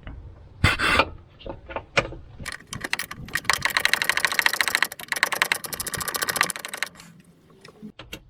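Wet-and-dry abrasive paper rubbed fast back and forth on a corroded car earth (ground) connection to scour off the corrosion. A few separate scrapes come first, then a steady run of rapid strokes from about three to seven seconds in.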